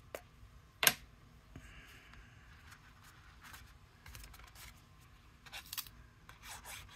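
Paper and cardstock being handled on a cutting mat: a sharp tap about a second in, then soft rustling and short scraping strokes as a sheet is picked up and flipped, growing busier near the end.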